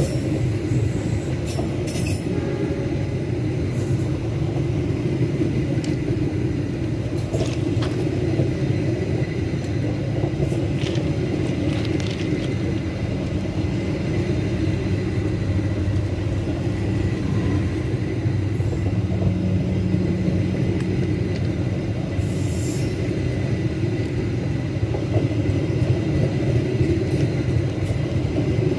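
Passenger coaches of a long-distance train rolling past close by: a steady rumble of steel wheels on rail with scattered sharp clacks.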